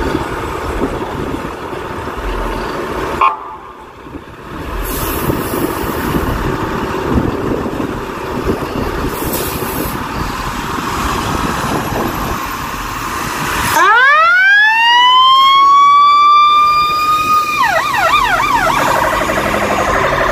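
Chicago fire engine's motor running as the rig pulls out. About fourteen seconds in, its Federal Signal e-Q2B electromechanical siren winds up from a low growl to a loud, steady wail. Near the end the wail gives way to a fast warbling yelp.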